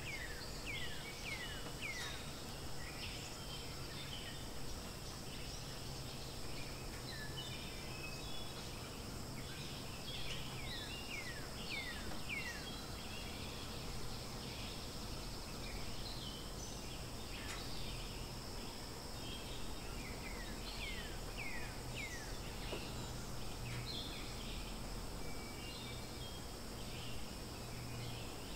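Outdoor ambience of birds calling: many short chirps that drop quickly in pitch, coming in clusters, over a steady high insect drone.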